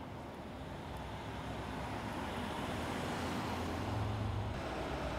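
Mercedes-Benz Concept S-Class Coupé driving past, its engine and tyre noise slowly growing louder and peaking about four seconds in.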